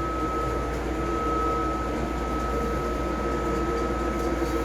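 Steady machine hum with a constant high-pitched whine over a low rumble, unchanging throughout.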